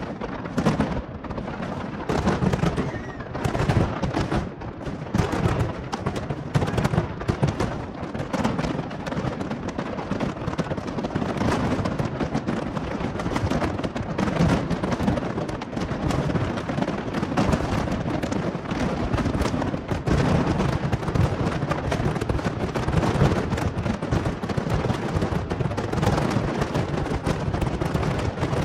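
Fireworks display: a dense, unbroken barrage of bangs and crackling shell bursts.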